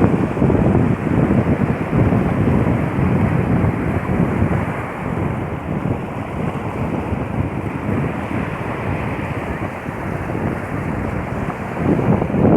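Sea waves washing onto a beach, with wind buffeting the microphone; a louder surge of surf comes near the end.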